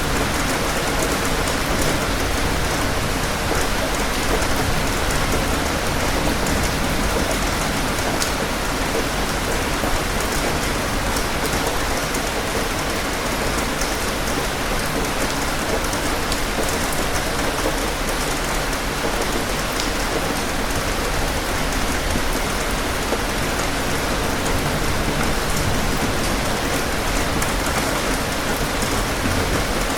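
Steady rain falling: an even hiss of countless drops that holds at the same level throughout, with no thunderclap or rumble standing out.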